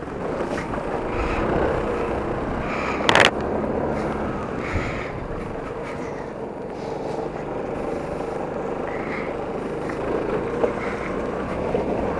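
Yamaha X-City 250 scooter's single-cylinder engine running as it pulls away and rides on a wet road, with tyre and spray noise. A single sharp knock comes about three seconds in.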